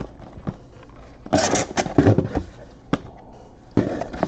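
Cardboard trading-card boxes being handled and slid, with bursts of scraping and rustling, one in the middle and another near the end.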